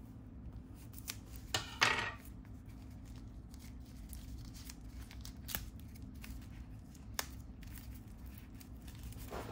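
Small white paper packet being slit open with a knife blade, then crinkled and torn as fingers pull it apart: scattered sharp ticks, with the loudest crackle a little under two seconds in. A steady low hum sits underneath.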